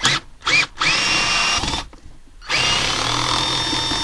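A power drill/driver run in two short blips, then two longer runs with a pause between, its motor pitch rising each time it spins up. It is backing out the screw that holds the small plate over the car's shift cable.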